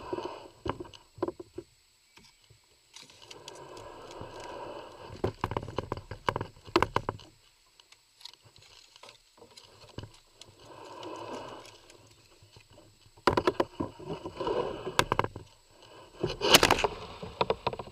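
Kayak being worked through fallen trees: irregular knocks and clicks of the hull and paddle against wood, with stretches of rubbing and water splashing. The loudest knocks and scraping come near the end.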